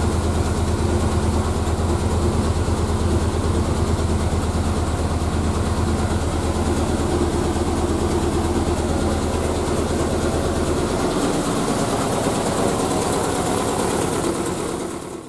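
Triumph Spitfire's four-cylinder engine idling steadily at about 1000 rpm, warming up to temperature after a radiator replacement and coolant refill. Its deepest part fades about eleven seconds in.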